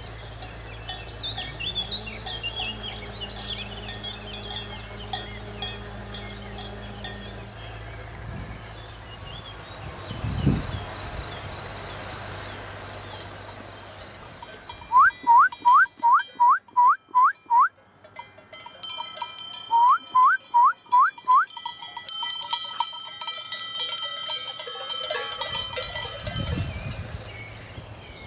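Bells clinking and ringing, with two loud runs of short rising chirps around the middle, about four a second.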